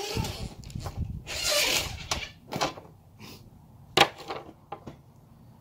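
Parts of a truck camper lift mechanism being handled and taken apart: two short scraping rushes, then a few sharp knocks, the loudest about four seconds in.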